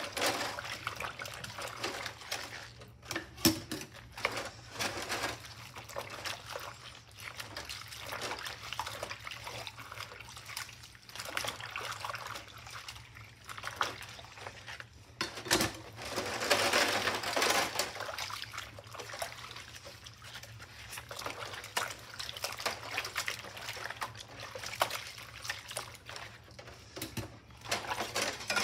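Rubber-gloved hands washing a kitchen knife with a sponge in a soapy stainless-steel sink: water sloshing and splashing and the sponge scrubbing through suds, loudest about halfway through. A sharp knock comes a few seconds in and another about halfway.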